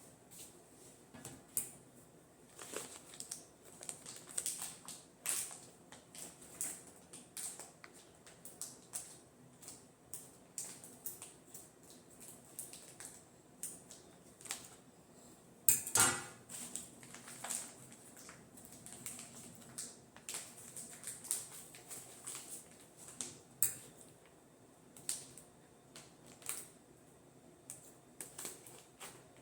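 Plastic wrapping on a rug crinkling and crackling as it is handled and pulled off, in irregular short bursts, with a louder crackle about 16 seconds in.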